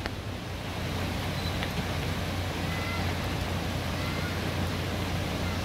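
Steady rain falling on a tarp flysheet overhead, an even hiss with a constant low rumble beneath. A few short, faint high chirps sound over it.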